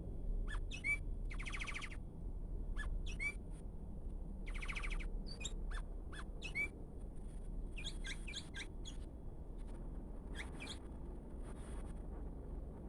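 Sooty-headed bulbul (kutilang) giving an unusual mix of calls: many short sharp chirps and quick slurred notes, with two longer buzzy, rasping notes in the first five seconds. A low steady hum runs underneath.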